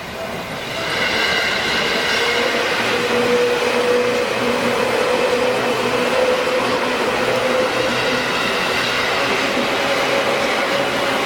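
A Seibu Shinjuku Line electric commuter train passing close by through a level crossing: a dense rushing rumble of wheels on rails with several steady whining tones. It swells about a second in and then stays loud.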